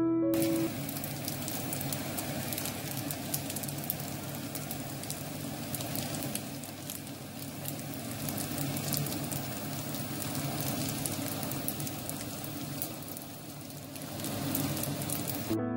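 A pasta frittata of spaghetti, eggs, peas and cheese frying in a pan after being flipped, cooking on its second side: a steady sizzle full of fine crackles.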